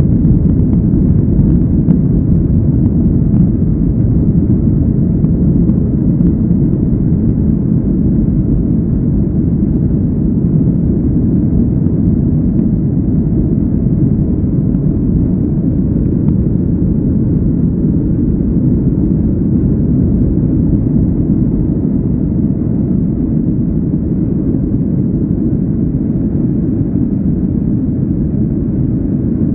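Steady low rumble inside the cabin of a Boeing 737-800 in its climb after takeoff: its CFM56-7B jet engines at climb thrust and the rush of air, heard from a seat behind the wing. The rumble eases slightly toward the end.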